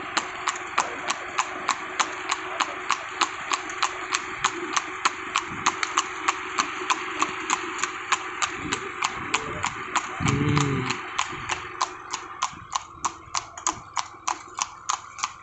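Horse's iron-shod hooves clip-clopping on asphalt at a steady, even pace, about four hoofbeats a second, as it pulls a two-wheeled cart. A short voice call breaks in about ten seconds in.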